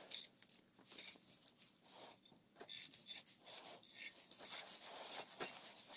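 Faint metallic rubbing and small clicks of a hand-cranked roller-chain breaker being turned by its T-bar, its screw pressing a pin out of a chain link.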